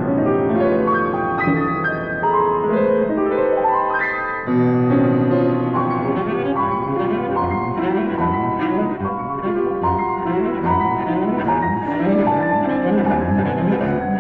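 Classical chamber music: a piano with a bowed low string instrument, playing a moving line of held and changing notes.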